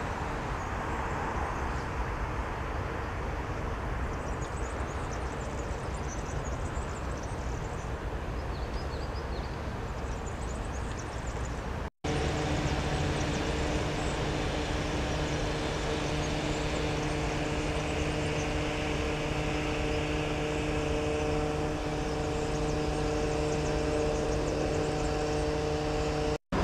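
Steady vehicle running noise in two clips: first a rushing hum, then after a sudden cut a steadier engine drone with a low hum and several held tones.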